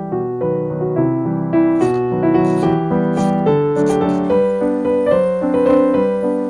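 Background piano music, a gentle melody with a steady pulse of notes.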